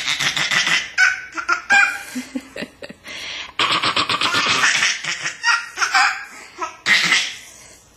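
Baby laughing in repeated short bursts, with a longer breathy run of laughter about halfway through.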